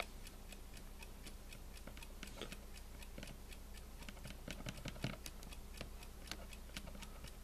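Faint, irregular clicking, several clicks a second, as the time-set buttons of a late-1970s to mid-1980s Tradition digital alarm clock are pressed to step the alarm time. A faint steady low hum lies underneath.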